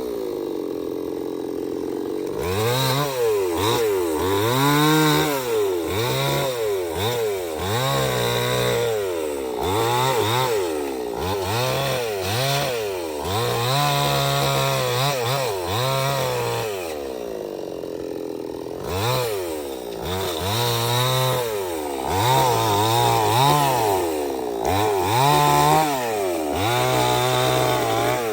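Stihl 070 two-stroke chainsaw cutting teak wood, its engine pitch dipping and climbing back over and over as the chain loads up in the cut and frees again.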